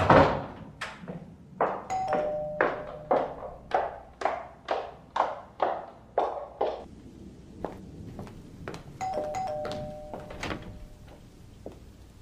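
Two-tone ding-dong doorbell chime, rung about two seconds in and again about nine seconds in. Between them comes a fast, even run of sharp thuds, about two or three a second, that stops about seven seconds in. A loud thud opens the passage.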